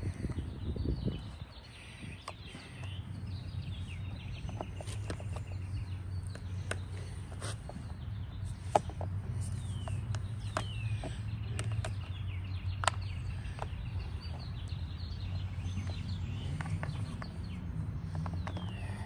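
Birds chirping, with short falling calls, over a steady low hum, broken by scattered sharp clicks and taps of trimmer parts being handled; two clicks, about 9 and 13 seconds in, stand out as the loudest.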